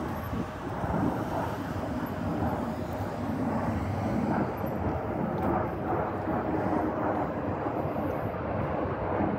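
Airplane engines at an airport, a steady rumble.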